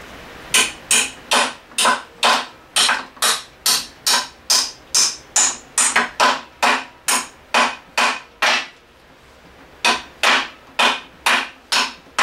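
Hand ratchet wrench worked in short back-and-forth swings on a bolt of an outboard's bracket, giving a quick burst of pawl clicks on each stroke, about two and a half a second; it stops for about a second roughly nine seconds in, then resumes.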